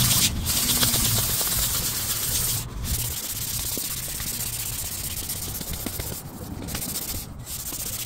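Hand sanding a wooden stick with fine 800-grit sandpaper: a dry, scratchy hiss as the paper rubs back and forth along the wood, with a few brief breaks between strokes and a low rumble underneath.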